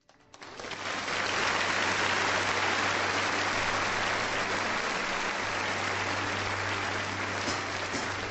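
Audience applauding, swelling up within the first second or so, then holding steady and easing off slightly near the end.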